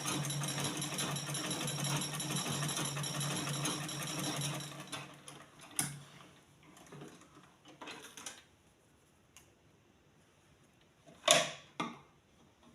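Manual (treadle) black-head sewing machine running steadily, stitching a straight seam with its stitch control set for long stitches, then stopping about four and a half seconds in. Faint handling clicks follow, and two sharp knocks come near the end.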